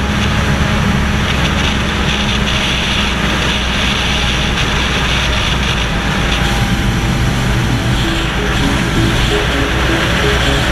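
Suzuki GSX-R sportbike's inline-four engine running steadily at highway cruising speed, heard on board under heavy wind rush across the camera.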